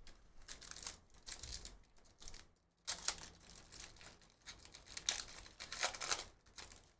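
Foil wrapper of a Panini Phoenix football card pack crinkling and tearing as it is ripped open by hand, in several short bursts, the loudest about three seconds in and near the end.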